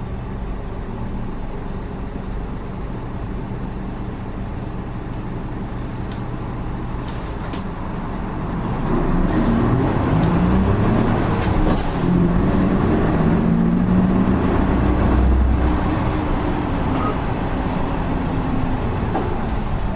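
Heard from inside the cabin, the diesel engine of a Nissan Diesel Space Runner RA city bus runs steadily at low revs, then about eight seconds in pulls away and accelerates. The engine note rises, drops once as it shifts gear and rises again. This bus is known for an engine sound unlike other buses of its type.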